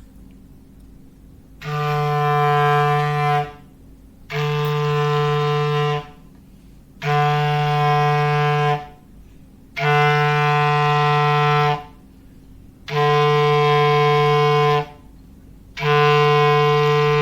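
Clarinet sounding a foghorn-like low note in long, even blasts, about two seconds each with a short gap, six times, the last still sounding at the end.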